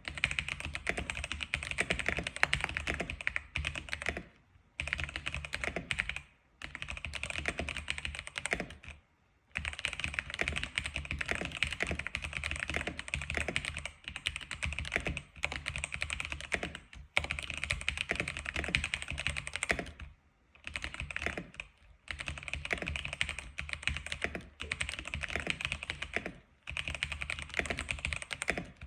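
Fast, continuous typing on an X87 keyboard, the keystrokes clicking in dense runs broken by brief pauses of about half a second, near 4, 6, 9, 20, 22 and 27 seconds in.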